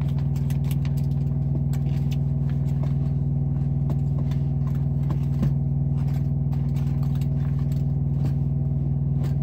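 Steady low hum of a semi truck's engine idling, heard inside the cab, with light clicks and rattles of a shower curtain and its rod being handled, and one sharper knock about five and a half seconds in.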